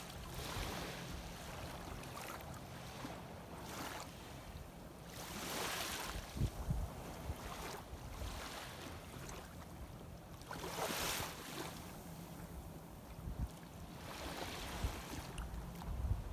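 Small waves of shallow sea water washing, swelling into a hiss every few seconds and falling back. Scattered low thumps and a faint steady low hum sit underneath.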